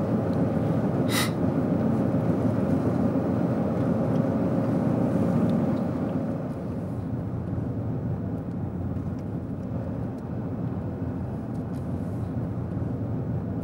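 Car driving on a paved road, heard inside the cabin: steady engine and tyre noise that drops a little after about six seconds, with a short click about a second in.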